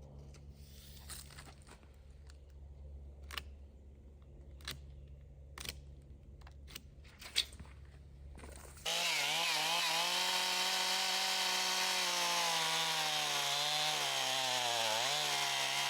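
A low steady hum with scattered clicks and knocks, then about nine seconds in a chainsaw starts, running at full throttle as it cuts across a black oak log. Its pitch dips briefly near the end as the bar loads up in the wood.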